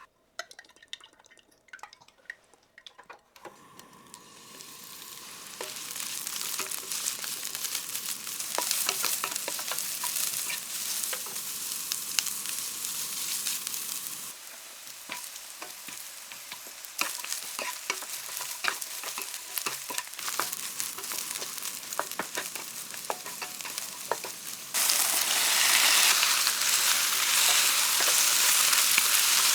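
Eggplant and tofu stir-fry sizzling in a frying pan, with many small clicks of a spatula stirring against the pan. A few light clicks come first, then the sizzle builds; it dips about halfway through and turns sharply louder near the end.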